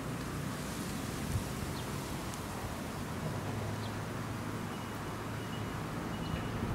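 Steady outdoor background noise with a low hum that swells and fades, and a few faint high chirps.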